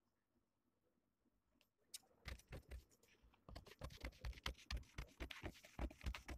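Large tailoring scissors cutting through a paper pattern sheet: a quick run of crisp snips that starts about two seconds in and grows denser.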